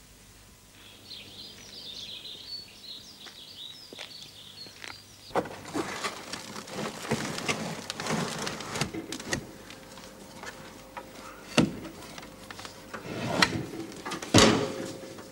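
Birds chirping for the first few seconds, then wooden boards scraping and knocking as a slatted wooden floor section is pushed up and shifted from below, with two sharp knocks in the second half.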